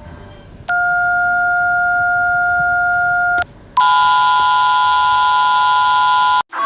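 Emergency alert attention tones: a steady two-note electronic tone begins about a second in and holds for nearly three seconds. After a brief break a louder, harsher steady tone sounds and then cuts off abruptly near the end.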